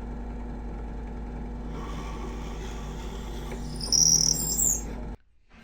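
Power drill running steadily as it bores a pilot hole in wood, with a loud high squeal from the bit about four seconds in; the motor stops suddenly about five seconds in.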